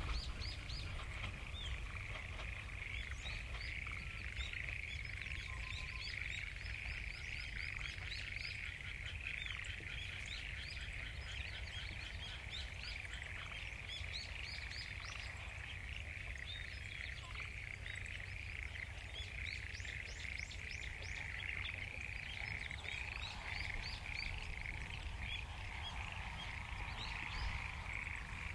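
Large chorus of frogs calling continuously as a dense, steady trill, with many short rising chirps above it. The recordist takes the frogs to be mostly black-spotted pond frogs (tonosama-gaeru), though other species may be among them. The tail of a train horn cuts off just as it begins.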